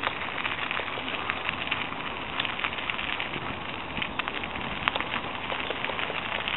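Bicycle tyres rolling over a gravel and dry-leaf trail, with the paws of dogs running on leash alongside: a steady crackling noise with many small clicks throughout.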